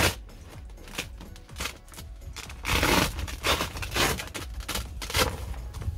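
A padded bench-seat backrest cushion being pulled out of its place and handled, giving a string of scraping, rubbing and bumping noises, loudest about three seconds in. Faint background music underneath.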